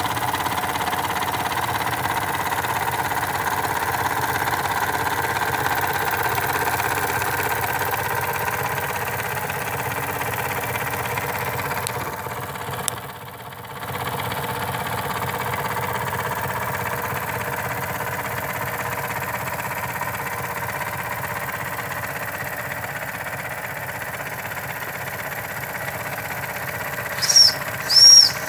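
Two Jensen #35 model steam engines running steadily, a continuous mechanical running sound from the pistons and flywheels. Near the end a steam whistle gives three short toots, each sliding up and back down in pitch.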